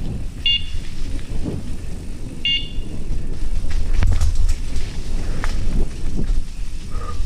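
Mountain bike rumbling and rattling along a dirt forest trail, with wind buffeting the microphone and scattered knocks from bumps. Two short high-pitched squeals come about half a second and two and a half seconds in.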